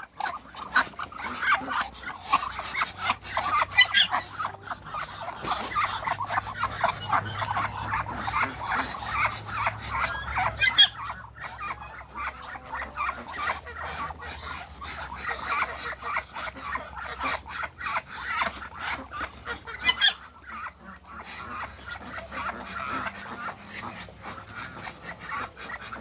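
A backyard poultry flock with Muscovy ducks among it calling steadily: a dense chatter of many short, overlapping calls.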